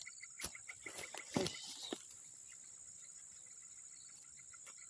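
Insects chirping steadily: a constant high buzz under an even chirp repeating about five times a second. Several sharp clicks and a short rustle sound in the first two seconds.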